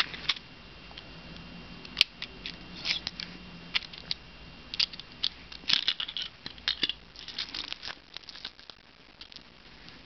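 Small plastic toy bricks clicking and rattling against a hard plastic box as it is handled and the bricks are tipped out onto the carpet: a run of irregular sharp clicks, busiest in the middle and thinning out toward the end.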